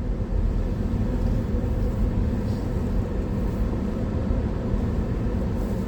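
Steady engine and road noise of a moving car heard from inside the cabin: a low, even rumble with a faint hum.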